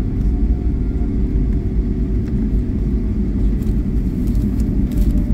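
Steady low rumble inside a Boeing 757-200's cabin as the airliner rolls along the airfield after landing, engine and wheel noise together. A faint hum fades away over the first three seconds.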